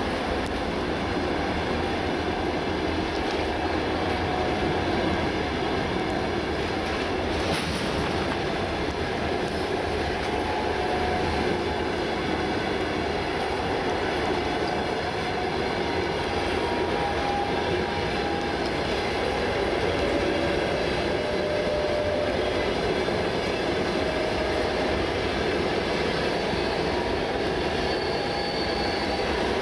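Passenger coaches of a long express train passing close by at speed: a steady rush and rumble of steel wheels on the rails, with brief thin wheel squeals now and then and a single sharp click about a third of the way through.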